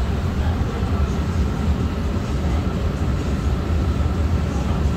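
Steady low rumble and hum inside a Xiamen Metro Line 3 train car, even throughout.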